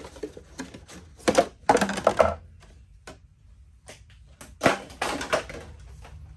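Civivi Badlands Vagabond folding knife cutting into a metal can: sharp cracking and crinkling clicks in several clusters, the loudest just under five seconds in.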